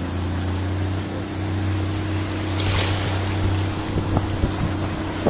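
Motorboat engine running steadily under way, with water rushing along the hull and wind on the microphone. A louder hiss of spray comes about three seconds in, and a few short knocks come near the end.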